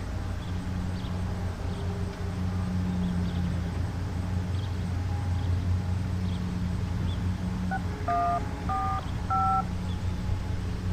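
Steady low hum of outdoor background noise. About eight seconds in come three short electronic beeps, each two steady tones sounding together at a slightly different pitch, like telephone dialing tones.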